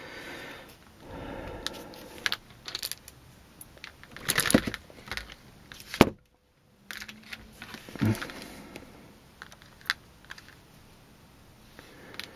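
Scattered clicks, taps and rustling of hands handling the plastic and metal parts and small screws of a radio-control crawler's chassis, with a few louder knocks; the sound drops out briefly a little after halfway.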